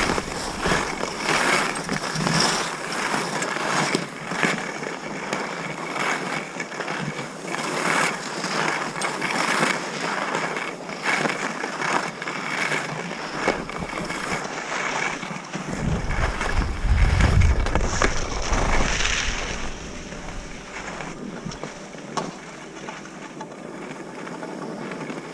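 Skis sliding and scraping over packed snow on a downhill run, with wind buffeting the microphone, heaviest about two-thirds of the way through. The sound gets quieter near the end.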